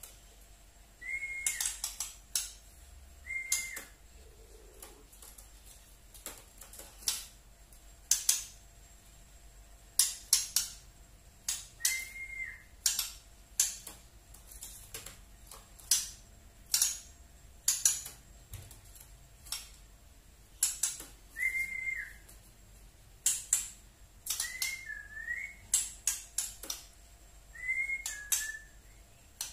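Juvenile white-rumped shama (murai batu trotol) giving its 'tretekan' call: irregular bursts of sharp, dry rattling clicks, with a short arched whistled note every few seconds.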